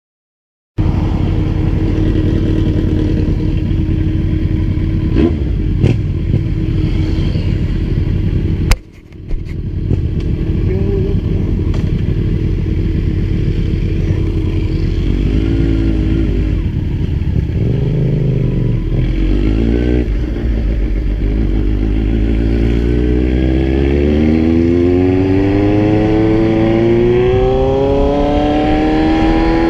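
Kawasaki Z1000 inline-four motorcycle engine running under way, with a short drop about nine seconds in. Its pitch dips and rises a couple of times, then climbs steadily over the last several seconds as the bike accelerates.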